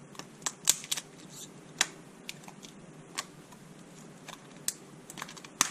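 Irregular sharp clicks and crackles of a toy capsule's packaging wrapper being handled while its pull-strip zipper is worked; the strip is not tearing open cleanly.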